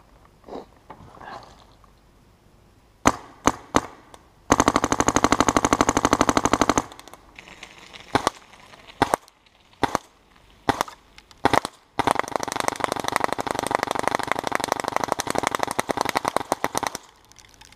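Dye DM13 paintball marker firing: a few single shots, then a rapid-fire string of about two seconds, more single shots, and a longer rapid-fire string of about five seconds, with paintballs smacking into a boulder.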